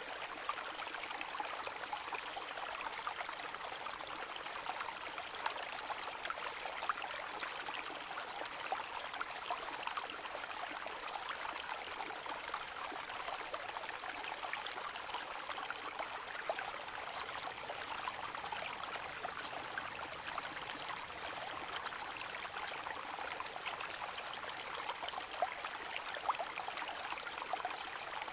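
A calm brook: shallow water flowing and trickling steadily over stones, a constant babble with small splashes and gurgles.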